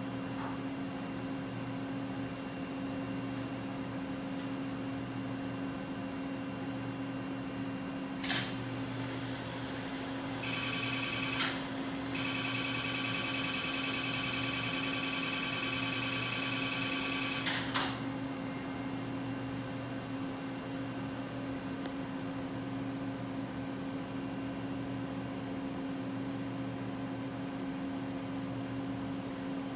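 Excimer laser firing: a rapid, dense train of pulses, like a fast crackling buzz, starts about ten seconds in and runs for about seven seconds after a brief first burst and a short break. A steady machine hum runs underneath throughout.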